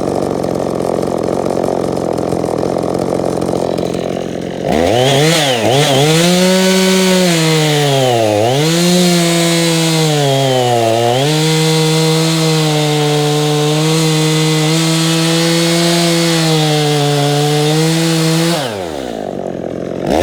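EFCO chainsaw running at high revs through wood. Its pitch dips several times as it loads up in the cut, then holds steady, and drops back near the end.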